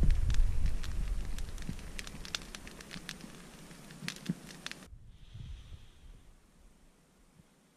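Small freshly lit fire of birch bark and dry sticks crackling with sharp pops over a low rumble. About five seconds in, the crackling stops abruptly and it goes nearly silent.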